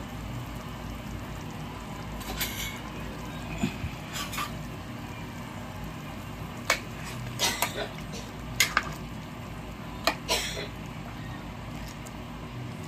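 Pot of bulalo beef soup boiling steadily while a metal ladle stirs the broth, scraping and clinking against the pot several times.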